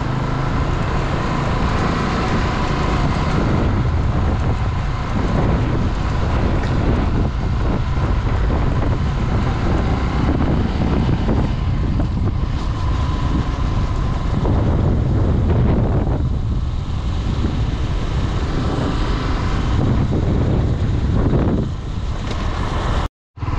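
Honda Twister 250 single-cylinder motorcycle being ridden, its engine running steadily under heavy wind buffeting on the microphone. The sound cuts out briefly near the end.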